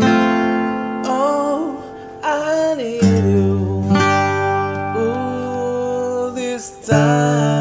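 Background music: a song with acoustic guitar and a singing voice.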